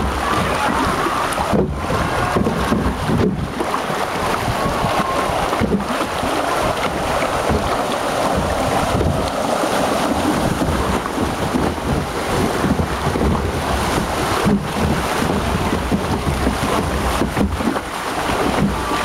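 Water rushing and churning along a log flume's concrete trough under a moving ride boat, with wind buffeting the microphone, loud and steady throughout.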